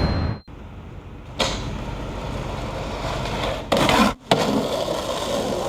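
Skateboard wheels rolling over pavement in a steady rumble. A louder, harsher stretch about four seconds in cuts off abruptly.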